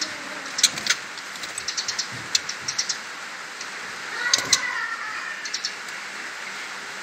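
Young white-rumped shamas (murai batu) in a cage: a scatter of short, sharp clicks and ticks, some in quick runs of several a second, with a brief warbled sound about four seconds in.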